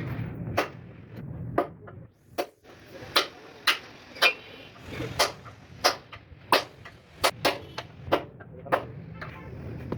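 Sharp metal knocks, about a dozen at uneven intervals, some ringing briefly, typical of a hammer striking a steel part. A low steady hum fades out in the first second and comes back near the end.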